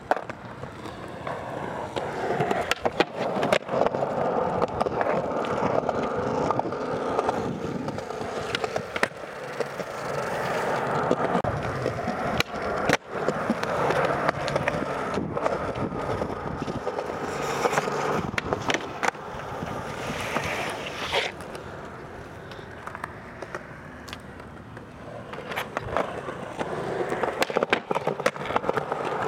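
Skateboard wheels rolling over pavement in a continuous grinding rumble, with several sharp clacks of the board striking the ground. It drops off for a few seconds late on and picks up again near the end.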